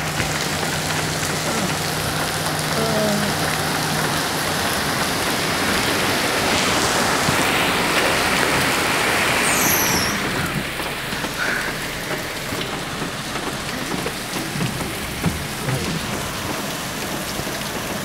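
Heavy rain falling steadily, with water leaking through a petrol-station canopy and splashing down. It eases slightly about halfway through, leaving scattered drips and splashes over the steady rain.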